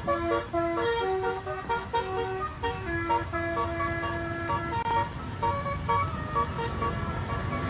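Basuri multi-tone telolet horn playing a tune of short and held notes at changing pitches, over the low rumble of a vehicle engine.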